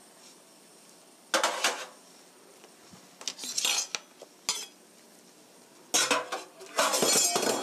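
Pot lid and kitchenware clinking and clattering against a pan. There are a few sharp clinks about a second and a half in, more around three and a half seconds, and a longer run of clatter from about six seconds in.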